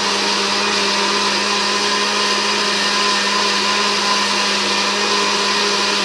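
Electric blender running a second time to finish blending a milkshake in its plastic jug: a steady, even motor hum with the whir of the liquid being churned.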